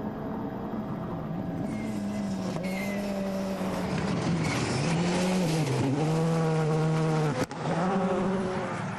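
Hyundai i20 N Rally1 rally car's turbocharged four-cylinder engine running hard at speed, its pitch dipping and rising several times, over a hiss of tyres on gravel. The sound breaks off sharply for a moment about seven and a half seconds in.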